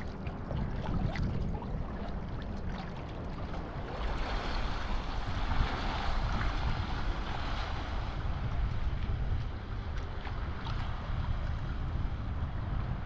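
Wind buffeting a microphone at water level over sloshing sea water. A brighter rush of splashing spray about 4 to 8 seconds in, as a kiteboard skims past.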